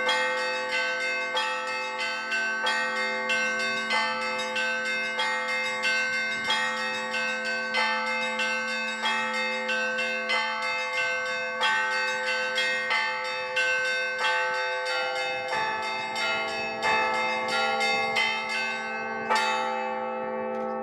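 Russian Orthodox church bells being rung: a steady, quick rhythm of strokes on several bells over a lower bell that keeps humming underneath. One louder stroke comes near the end, and the bells are left ringing.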